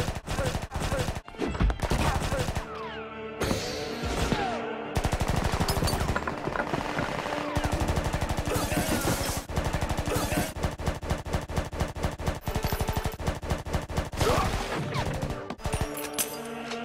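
Rapid automatic fire from an FN P90 submachine gun as an anime sound effect. A few scattered shots come first, then a long run of continuous fire from about five seconds in until near the end, over background music.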